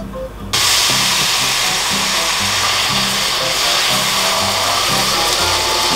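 Thin-sliced beef brisket sizzling in a hot stainless steel wok as it is stirred with a spatula; the steady frying hiss starts suddenly about half a second in.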